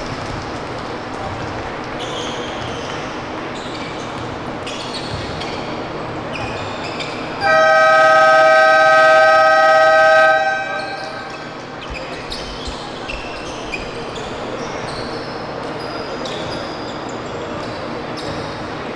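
Basketball scoreboard buzzer sounding one long steady blast of about three seconds, starting about seven seconds in: the final buzzer ending the game. Around it is court noise with a basketball bouncing.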